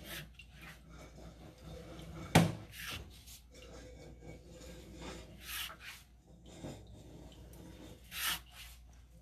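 Irregular rubbing and scraping as a sewer inspection camera and its push cable are pulled back through the drain pipe, with a sharp knock about two and a half seconds in and a steady low hum underneath.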